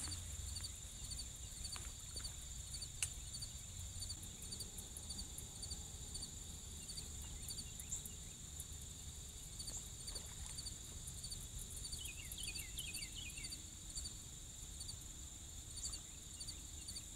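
Steady insect chorus: a continuous high-pitched trill with evenly repeated chirps above it. About twelve seconds in, a bird calls briefly with a few falling notes.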